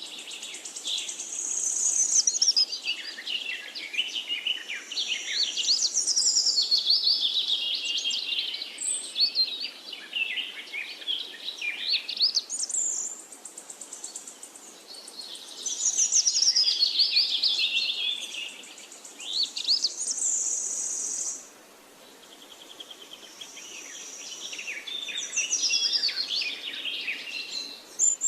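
Songbirds singing: an overlapping chorus of quick, high chirps and warbled phrases that runs on with only short pauses, the longest about two-thirds of the way through.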